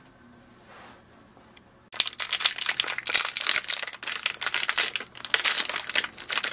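Foil packaging of an inkjet ink cartridge being torn open and crinkled by hand. It is a rapid, irregular crackling that starts about two seconds in.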